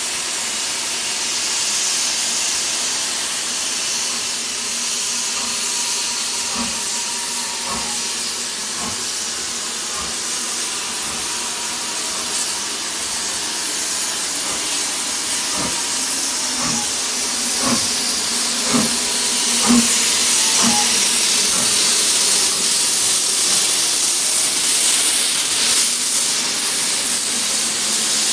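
Steam locomotive 75069, a BR Standard Class 4 4-6-0, hissing steam steadily as it comes slowly closer, growing louder near the end. Through the middle there is a run of deep knocks about a second apart.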